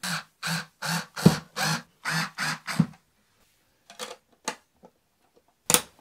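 Electric screwdriver driving a wallplate screw in about eight short pulses over the first three seconds. Then a few light clicks and one sharp snap near the end as the plastic cover plate is pressed on over the switch.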